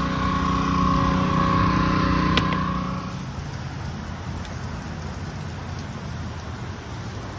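Small gas engine of a soft-wash roof pump running steadily. A steady hum over it stops about three seconds in, leaving a lower, quieter engine rumble.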